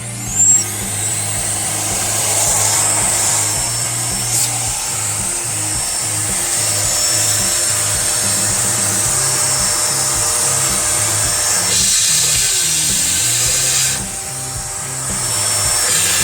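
Background music with a stepping bass line, over a loud steady hiss of rushing air from a motor-driven appliance. The hiss changes about twelve seconds in and dips about fourteen seconds in.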